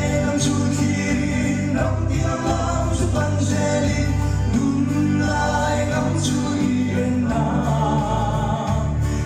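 A man sings a gospel song into a microphone, heard through a PA, over an accompaniment of held low notes that change every second or so.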